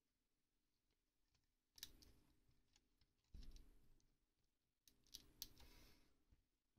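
Faint clicks of plastic LEGO pieces as hands press on and handle the model tractor, in three short spells amid near silence.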